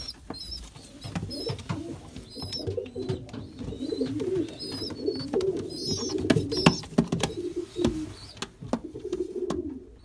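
Domestic pigeons cooing, a low warbling coo that runs on and off, with short high chirps repeating and scattered sharp taps and knocks.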